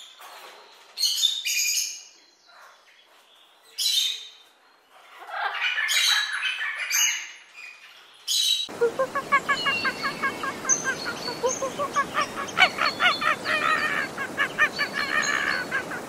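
Scarlet macaws giving harsh squawks, one at a time and in short bursts. About halfway through, the sound cuts abruptly to a fast run of short chattering bird calls over a steady background hiss.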